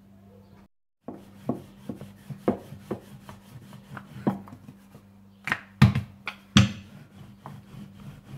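Rolling pin rolling out samosa dough on a board, with irregular knocks and light rubbing as the pin moves and strikes the board; the loudest knocks come a little after halfway.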